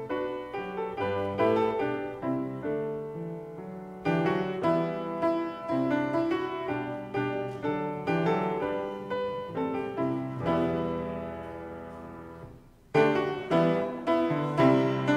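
Piano playing the introduction to a hymn in struck chords, each decaying after it is played. Near the end a held chord fades away, and after a brief break a louder phrase begins.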